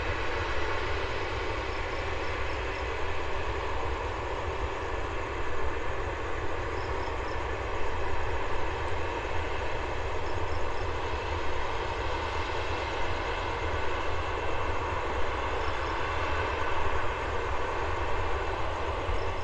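Jet airliner engines running at a steady, low power as the aircraft taxis: an even rush of engine noise with faint steady tones in it, swelling slightly about eight seconds in.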